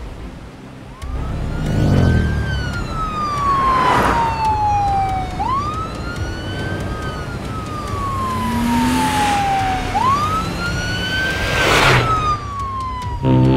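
Police car siren wailing in slow cycles, each a quick rise then a long falling glide, about three times over. Rushing vehicle noise swells and fades several times alongside it.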